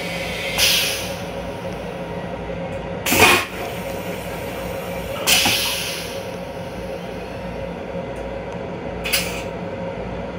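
Stainless-steel toilet on a Long Island Rail Road M7 railcar flushing. There are short hissing whooshes near the start, about three seconds in (the loudest) and about five seconds in, and a faint one near the end, over the steady running hum of the railcar.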